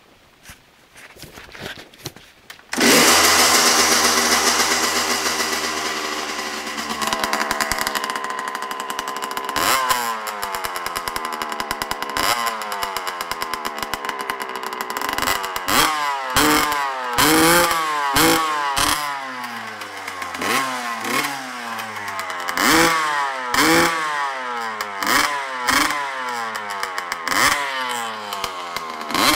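A 1994 Suzuki RM125's single-cylinder two-stroke engine is kick-started with a few faint strokes and catches about three seconds in at a high, loud fast idle that gradually settles. From about ten seconds in it is revved with repeated throttle blips, each a quick rise and fall in pitch, coming more often in the second half.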